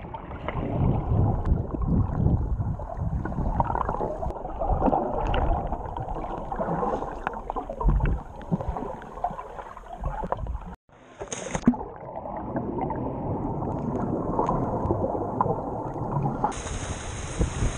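Muffled underwater sound picked up by an action camera carried through a submerged cave: a dull churning and sloshing of water, with soft knocks from the swimmer's movements. Near the end it switches abruptly to open-air wind hiss on the microphone.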